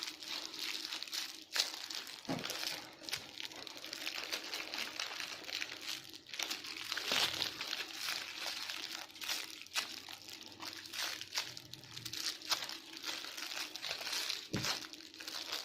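Crinkly wrapping being handled and crumpled by hand, a continuous rustling crackle with many small crunches as a squishy toy is unwrapped from its packaging.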